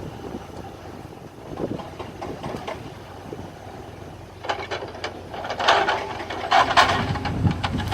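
A machine engine running low and steady, then from about halfway through a run of wooden knocks and clatter as oak logs are handled, loudest near the end.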